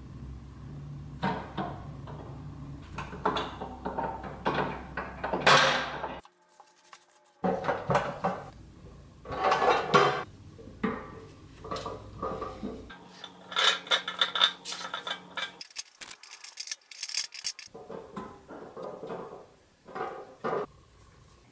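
Painted pressed-steel toy truck parts clinking and scraping against each other and the bench as they are handled and fitted together, a run of sharp metal clicks broken by short pauses.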